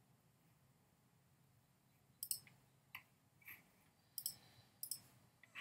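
Computer mouse clicking about five times, some clicks in quick pairs, starting about two seconds in after a near-silent stretch.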